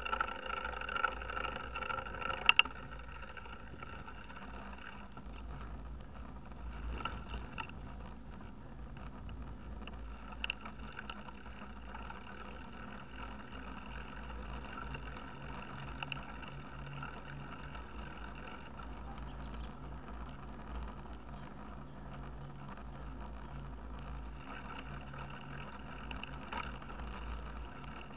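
Mountain bike rolling along a paved lane: a steady low rumble of wind buffeting an action camera's microphone, with tyre noise and a few clicks and knocks from bumps. For the first couple of seconds a steady hum with overtones sounds, cut off by a sharp click.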